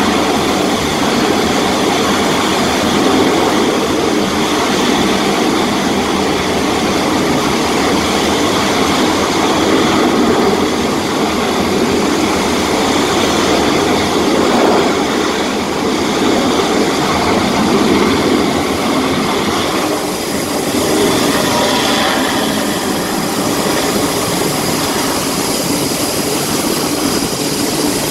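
Jet engines running on an aircraft carrier's flight deck: a loud, steady roar with a thin high whine over it.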